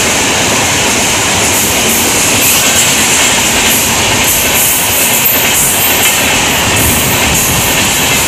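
Indian Railways passenger train passing through a station at speed: a loud, steady rush of wheels on rail, with repeated clacks of the wheels over rail joints.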